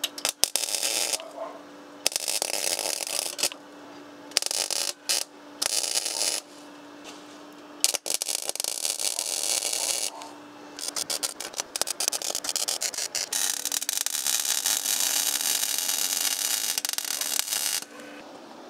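Gas MIG welder arc crackling and hissing in repeated short bursts, stitch-welding a steel repair patch, with a longer unbroken run of about four seconds near the end. A steady hum runs under each burst.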